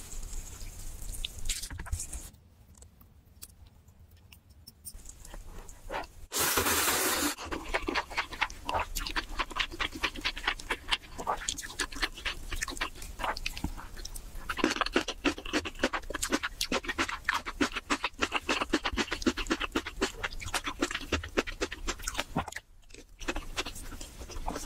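Close-miked eating sounds of a person eating crab legs and ramen noodles: wet chewing, lip smacks and quick mouth clicks, with one loud slurp lasting about a second, about six seconds in.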